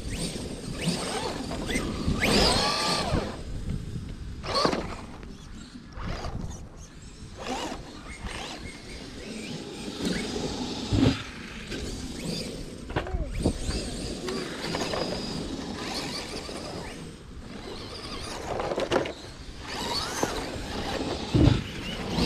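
Electric RC cars running: motor whines rise and fall in pitch several times as the cars accelerate and pass, with a few short knocks.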